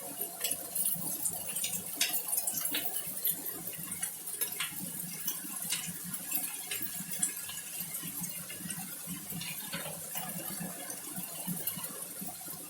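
Fried rice sizzling in a pan, just after sweet soy sauce has been added, with frequent small clicks and scrapes of the utensil against the pan.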